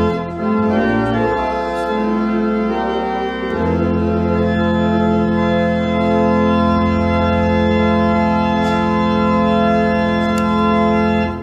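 Church organ playing sustained chords over a deep pedal bass. The harmony changes several times in the first three seconds or so, then one full chord is held and released near the end.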